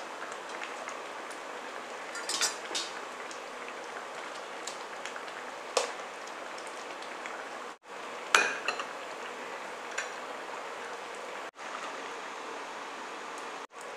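Fish curry simmering in a pan with a steady bubbling hiss, while a metal spoon clinks against the pan a few times, loudest about eight seconds in.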